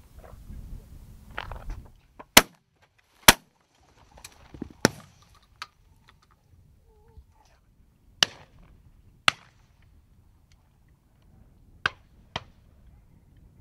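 Gunshots, sharp cracks fired mostly in pairs about a second apart, three pairs in all, with a few fainter single cracks between them.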